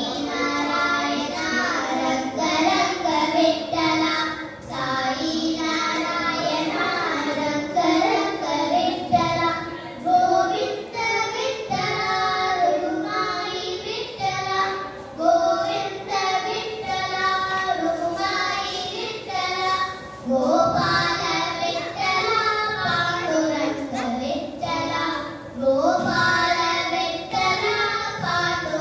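Two girls singing a Carnatic vocal duet, one continuous melodic line with gliding, bending notes.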